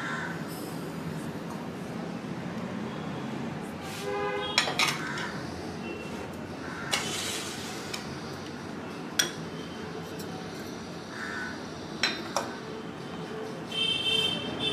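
Kitchen crockery clinking: a steel bowl and plate knocking against a glass mixing bowl about half a dozen times as dry ingredients are tipped in, with one brief ringing clink about four seconds in and a short dry pour around seven seconds.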